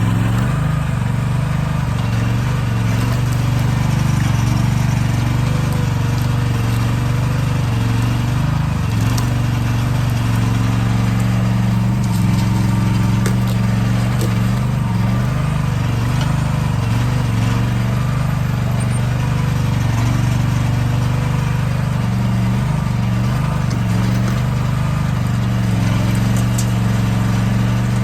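Heavy equipment engine running steadily under work, a constant low drone throughout.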